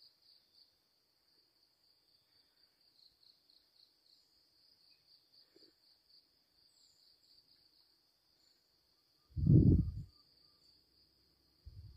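Insects chirring steadily in a high, faintly pulsing drone. About nine and a half seconds in comes a dull low thump on the microphone, the loudest thing here, and a weaker one just before the end.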